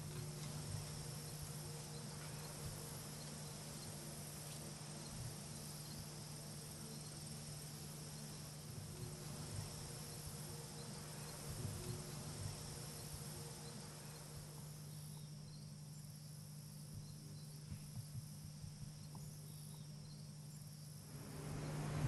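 Quiet ambient background: a steady low hum with a faint, steady high-pitched hiss above it, growing louder just before the end.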